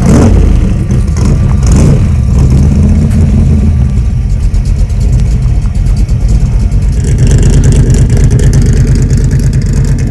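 Car engine idling loudly and steadily just after being started.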